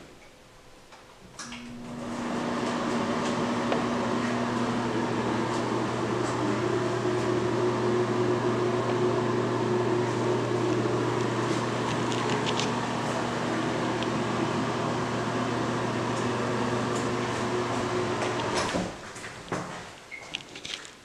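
Bathroom exhaust fan switched on, running with a steady motor hum and airflow noise, then switched off near the end.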